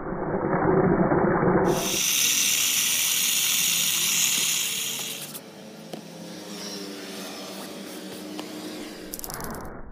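Toothbrush bristles scrubbing foamy cleaner into fabric car-seat upholstery. About two seconds in, a spray bottle gives off a loud, steady hiss of liquid for some three seconds. Then comes softer rubbing, with a brief return of scrubbing near the end.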